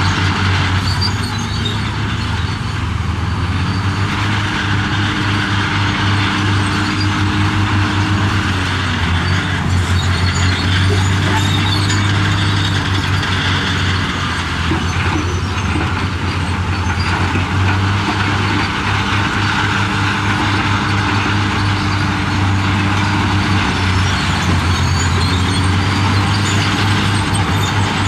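Heavy-equipment diesel engine running loud and steady. It revs up and holds for several seconds, then eases off, about three times.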